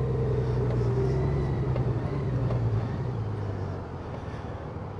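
Honda Gold Wing's flat-six engine running on the move, with a steady hum whose pitch slowly falls and fades in the second half as the bike slows.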